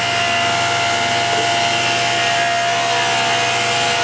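Power saw running steadily while cutting a rabbet along a thin strip of wood: a constant motor tone over steady cutting noise.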